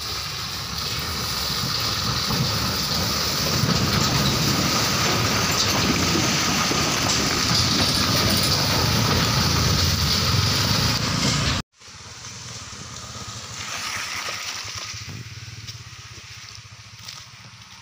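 Heavy tipper truck driving slowly past at close range on a rough gravel road: deep engine rumble with tyres crunching over stones, building and holding loud for about twelve seconds. It then cuts off abruptly to a much quieter rumble that swells once and fades.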